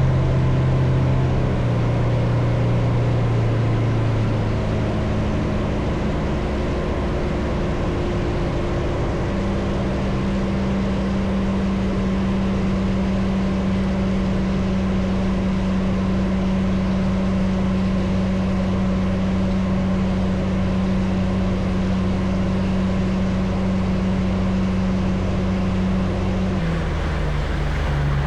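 Motorboat engine running under way, with a wash of hull and water noise. Its note shifts in the first few seconds, holds steady and higher from about nine seconds in, then drops near the end.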